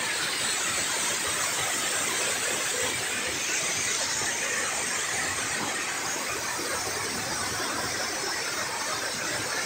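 Steady rushing of river water pouring over a spillway into the foaming pool below, an even unbroken roar of falling water.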